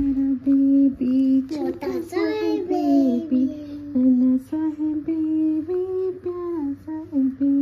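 A female voice humming a tune without words, in short held notes, with a higher rising note about two seconds in.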